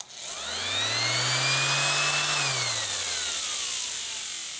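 Harbor Freight 5-inch random orbital palm sander switched on with a click, its motor whining up to speed and running for about two seconds. It is then switched off, and the whine falls steadily in pitch and fades as the pad spins down.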